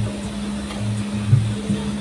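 Background music with a regular bass beat, over a steady low hum.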